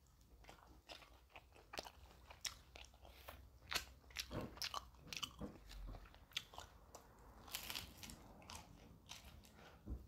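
A person eating pizza close to the microphone: irregular bites and chewing, with many small crunchy, crackly clicks.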